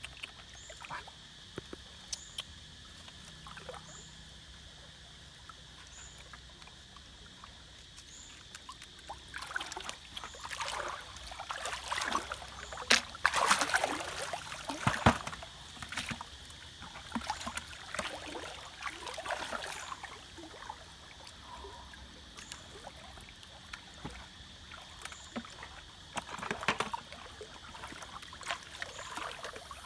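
Water splashing and sloshing in a shallow stream as a person wades and moves a plastic bucket through it, in irregular bursts that are busiest in the middle.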